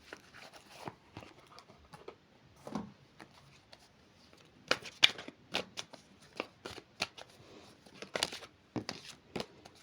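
Tarot cards being shuffled and handled by hand: a run of short, irregular flicks and taps of card against card, busier in the second half.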